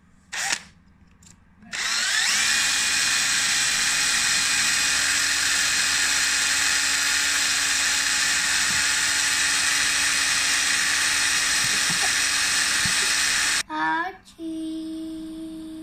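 Cordless drill spinning up and running steadily for about twelve seconds as a small bit bores into a small blue part, then stopping abruptly.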